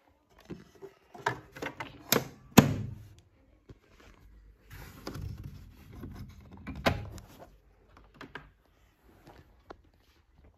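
Clicks and knocks from the metal-trimmed case of a Crown CRC 9950 briefcase radio cassette player as it is handled and its lid shut. The loudest is a sharp thunk about two and a half seconds in, followed by rustling and another click a few seconds later.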